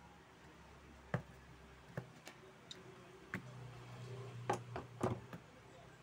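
Scattered sharp clicks and taps from small parts and tools being handled on a workbench: a ceiling-fan regulator's rotary switch and capacitor, and a screwdriver. About seven in all, the loudest a little over a second in and twice near the end, with a low hum joining in for a couple of seconds in the second half.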